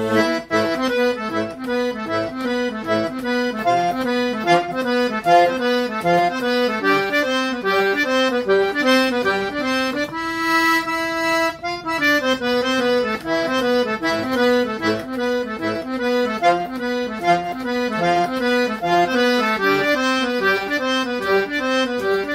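Accordion (sanfona) playing an instrumental break of quick running melody notes over chords, with one chord held for a moment about ten seconds in.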